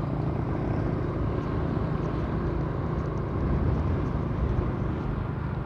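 Steady engine and road noise from a motor vehicle driving along a street at an even pace.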